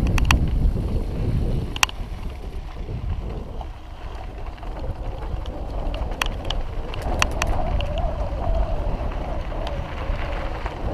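Wind buffeting an action camera's microphone on a mountain bike rolling over a dirt trail, with tyre rumble and scattered sharp clicks and rattles from the bike over rough ground. A wavering whine comes in during the second half.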